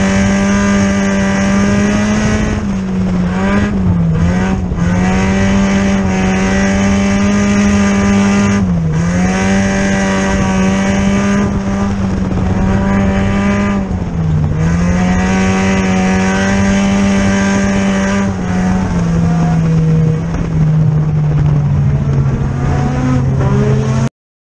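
Strictly Stock dirt-track race car's engine heard from inside the cockpit, running hard at a steady high pitch that dips briefly every five or so seconds as it comes off the throttle for the turns. Near the end it settles to a lower note, and the sound cuts off abruptly.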